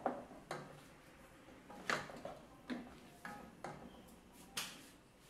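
A wooden spoon knocking and scraping against a metal cooking pot while stirring a vegetable mix of peas and corn: a series of separate sharp knocks, about seven, with faint rustling between.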